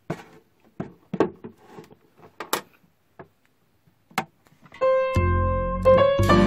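A scattering of sharp clicks and knocks as hands handle a homemade power bank in a clear plastic case, then background piano music comes in about three-quarters of the way through and is the loudest sound.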